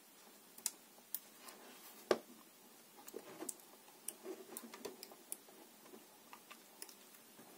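Faint handling clicks and small ticks as fingers press and smooth a label sticker onto a multimeter's rubber holster, with one sharper click about two seconds in.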